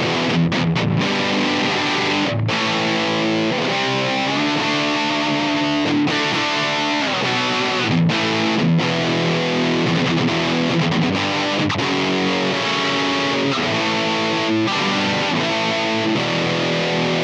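Gibson Les Paul electric guitar played through a Simplifier MK2 amp-simulator pedal on its high-gain setting, with the power amp turned down to about 3: distorted chords and riffs, with a few brief breaks between phrases.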